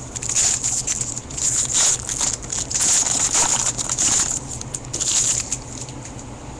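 Foil wrapper of a baseball card pack crinkling and crackling in the hands as the pack is opened, in many quick, irregular crackles.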